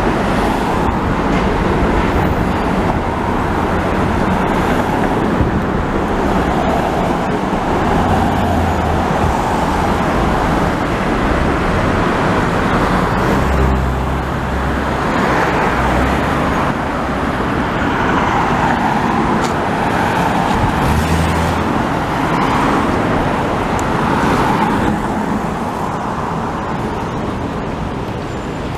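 Busy city street traffic: a steady wash of road noise with vehicle engines rumbling past now and then. It eases slightly near the end.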